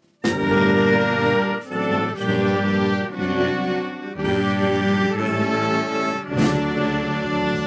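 Military brass band playing slow ceremonial music in sustained full chords, the notes changing about once a second. The music begins abruptly just after the start.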